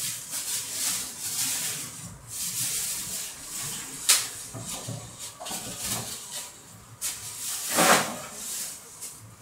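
Thin plastic packaging cover rustling and crinkling as it is pulled off a flat-screen TV, with a sharp snap about four seconds in and a loud swish near the end.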